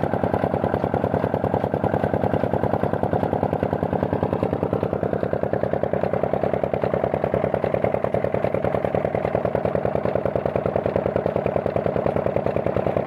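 Old single-cylinder Petter diesel engine running steadily with an even, rapid chugging beat while it drives a tubewell pump under load.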